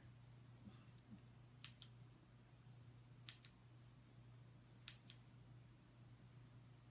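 Near silence with a low steady hum, broken by three pairs of faint, sharp clicks about a second and a half apart.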